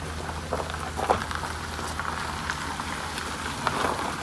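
A vehicle engine running with a steady low hum, and gravel crunching irregularly.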